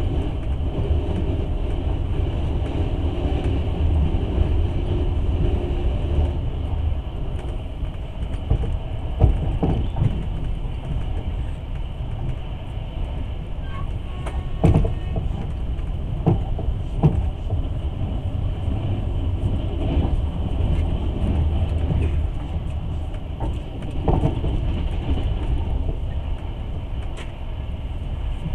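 Passenger train carriage in motion, heard from inside: a steady low rumble of wheels on rails, with irregular sharp knocks and clacks. A low hum runs through the first few seconds.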